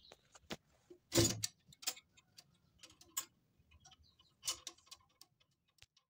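A casement window being pulled shut and latched: a string of clicks and knocks from the frame and latch, the loudest about a second in and another a little past the middle.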